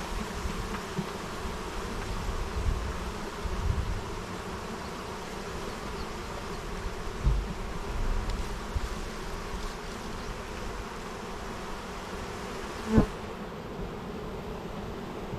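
A mass of honeybees buzzing as a steady hum. A few low bumps sound in the first half, and one sharp knock comes near the end.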